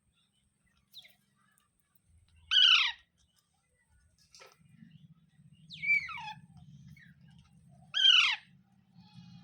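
Pet green parrot giving three loud, short, downward-sweeping calls, each about a third of a second long and spaced about three seconds apart.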